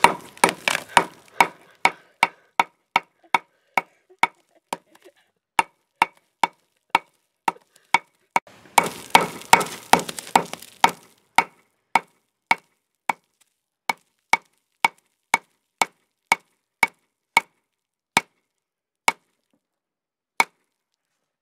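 Claw hammer striking an iPod Touch on a paving slab over and over, dozens of sharp blows crushing its cracked glass screen. The blows come about two or three a second, speed up into a fast flurry about halfway through, then slow to single strikes more than a second apart near the end.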